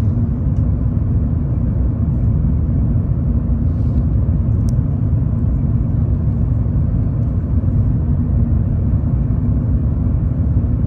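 Cabin noise inside an Airbus A380 in flight: a steady low rumble of engines and airflow, heard from a window seat over the wing.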